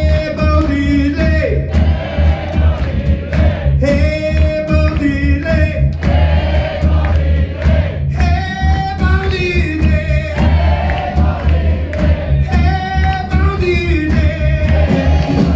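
Live rock band playing electric guitar, bass, keyboard and drums, with a sung refrain of long held notes that comes round about every four seconds and is joined by the audience singing along.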